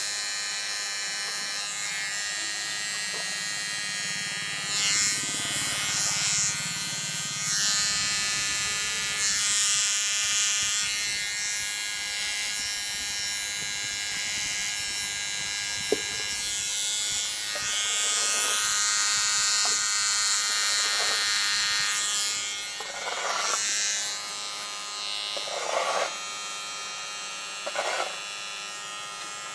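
Electric hair clipper running steadily, growing louder in stretches as the blade cuts hair on the side and back of a man's head. A single sharp click about halfway through.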